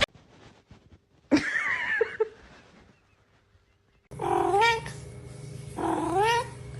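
Domestic cat meowing: one drawn-out meow about a second in, then two more meows with rising, bending pitch in the second half, over a low steady hum.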